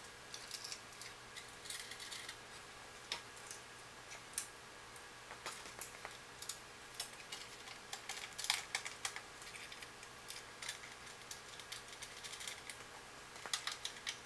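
Light steel chain clinking and rattling in many small irregular clicks as it is hooked onto a welder cabinet's hinged metal front panel, busiest after the middle and again near the end, over a faint steady hum.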